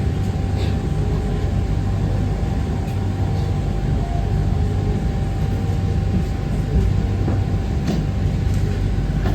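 Pink Line monorail train running, heard from inside the car: a steady rumble with a thin, steady whine on top.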